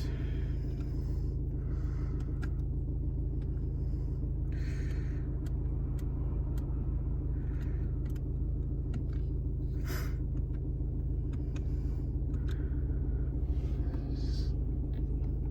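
Car engine idling with a steady low rumble, heard from inside the cabin, with a few light clicks scattered through.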